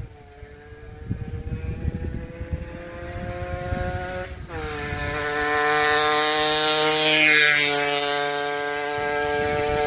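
A 1993 Aprilia RS50's 50cc two-stroke single-cylinder engine approaches at part throttle. Its pitch climbs and drops sharply at an upshift about four seconds in, then it passes close, loudest here, and its pitch falls as it draws away. Wind buffets the microphone throughout.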